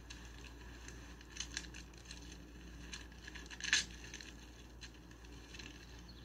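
Plastic candy-bar wrapper crinkling as it is torn open: a run of faint crackles, with the loudest rip about three and a half seconds in.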